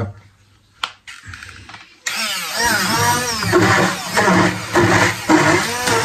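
Hand-held stick blender switched on about two seconds in and chopping bread into crumbs, its motor pitch rising and falling over and over as the blade meets the bread.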